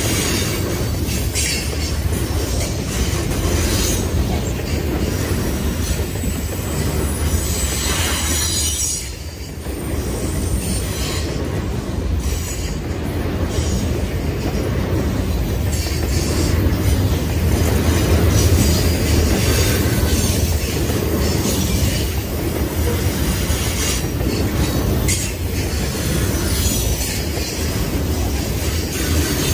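Covered hopper grain cars of a freight train rolling past close by: a steady low rumble of steel wheels on rail with irregular clicks as the wheels pass. The sound dips briefly about nine seconds in.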